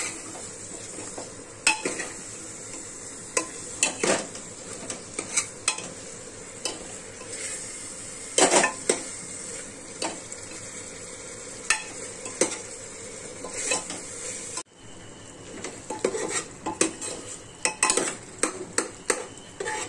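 Onion–tomato masala frying in oil in a pressure cooker, sizzling steadily, while a metal spoon stirs it and knocks and scrapes against the pot at irregular moments. The spices are being fried until the masala releases its oil.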